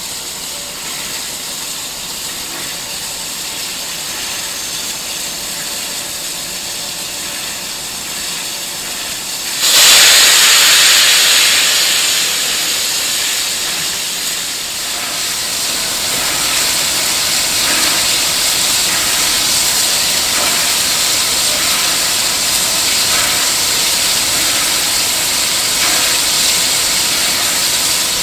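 Ex-Victorian Railways R class steam locomotive R766 hissing steam as it stands at the platform. About ten seconds in, a sudden loud rush of venting steam starts, eases slightly a few seconds later, then holds steady.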